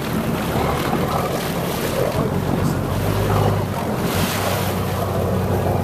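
Wind rushing over the microphone aboard a boat at sea, over the wash of the water and a low steady hum from the boat.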